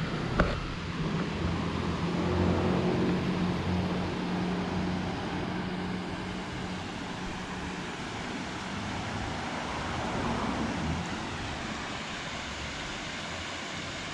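Road traffic on a nearby road: a steady hum of engines and tyres that swells as vehicles pass, about three seconds in and again about ten seconds in.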